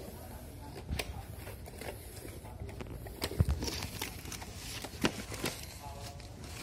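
Cardboard packaging being handled: a box slid and its flap pulled open, with scattered light taps and rustles and a dull knock about three and a half seconds in.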